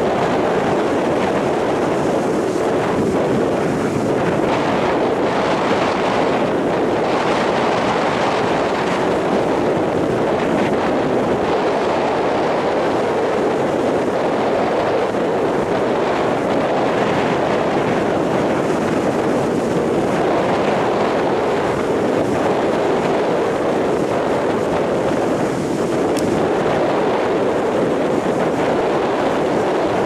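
Rough surf breaking and washing up a sandy beach in strong wind: a steady, unbroken roar, with wind on the microphone.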